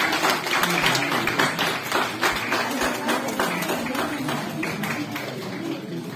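Audience clapping in applause, gradually dying down, with voices murmuring underneath.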